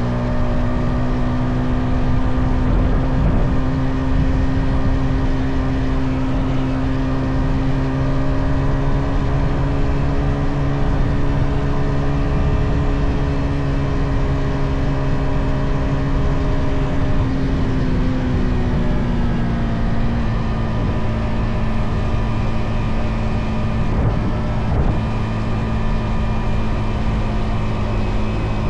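Yamaha XSR 155's stock single-cylinder engine running at a steady cruise, with road and wind noise underneath. The engine note creeps up slightly, drops about two-thirds of the way through as the throttle eases off, then holds steady at the lower pitch.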